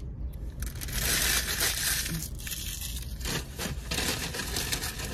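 Paper taco wrappers crinkling and rustling as hard-shell tacos are moved around by hand, busiest from about a second in.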